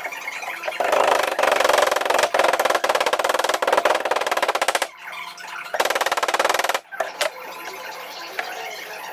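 Power saw cutting a curve in wood, in two bursts with a fast rattle: a long cut of about four seconds, then a short one of about a second.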